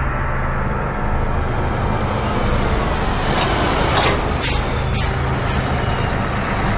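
A large motor vehicle running steadily: a low engine hum over road noise, with a couple of sharp clanks about four to five seconds in.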